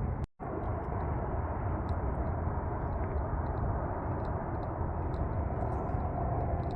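Steady low rumbling noise with some hiss, broken by a brief dropout just after the start.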